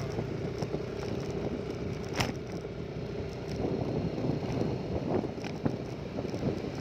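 Small boat engine running, with wind buffeting the microphone. A sharp click comes about two seconds in, and the engine's steady hum fades out about three and a half seconds in.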